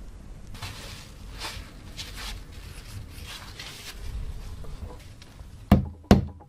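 Hand-tool work on a rusted oil lamp: a run of rough rubbing strokes at about two a second, then two sharp knocks near the end.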